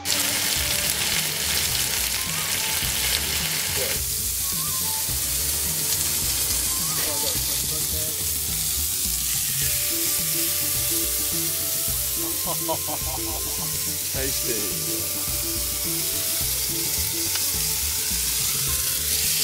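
Chicken sizzling in a Dutch oven over hot coals, a steady crackling hiss, with background music and a repeating bass line underneath.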